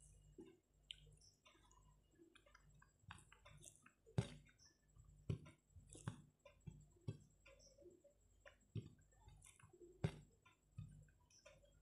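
Faint eating sounds: scattered soft clicks and wet smacks as rice and curry are mixed and eaten by hand, with a sharper click about four seconds in.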